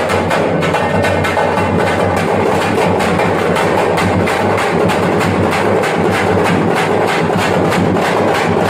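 Thappattam (parai) frame drums beaten with sticks in a fast, steady rhythm, about five or six strokes a second.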